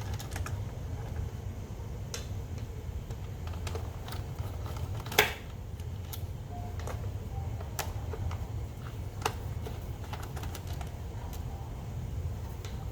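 Scattered small clicks and taps of a screwdriver working the screws out of a car radiator cooling fan's motor, with one sharper click about five seconds in, over a steady low hum.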